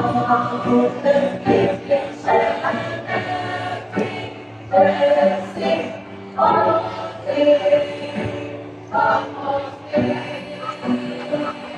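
Youth choir singing in parts with musical accompaniment, a steady low note held beneath the voices as the phrases rise and break every second or two.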